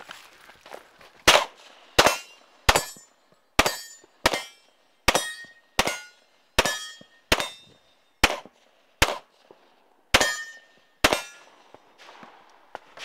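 A pistol fired thirteen times at a steady pace, about one shot every three-quarters of a second, with a slightly longer pause before the last two shots. Several shots carry a brief metallic ring.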